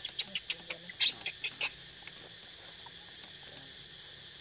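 Infant macaque squeaking in a quick run of short, high-pitched cries, about four or five a second, which stop just under two seconds in.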